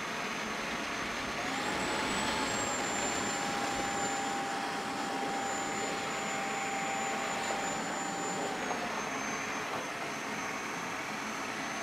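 Dreame H12 Pro cordless wet-dry vacuum running on a wet spill of oatmeal and oat milk, its suction motor and spinning roller brush giving a steady hiss with a thin motor whine. The whine steps up in pitch about a second and a half in, holds, and drops back about three seconds before the end.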